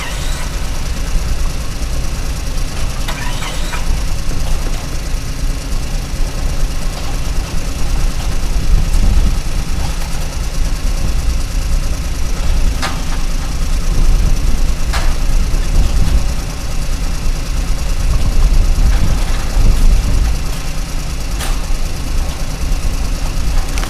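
Steady low engine-like rumble from a radio-controlled toy excavator, with a few sharp clicks scattered through it.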